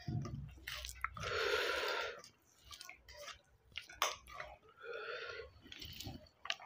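Chewing of a mouthful of rice and wet squishing as a hand kneads rice with green chilli chutney on a steel plate, with scattered sharp clicks and two longer noisy rushes, about a second in and near five seconds.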